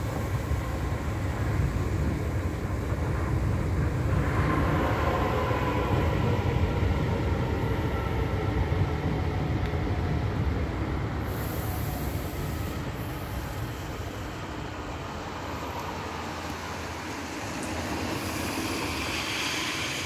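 DART 8500-series electric multiple unit running into the station and slowing, its wheels and motors rumbling, with a faint high whine from about four seconds in. The rumble dies down over the second half as the train draws to a stop.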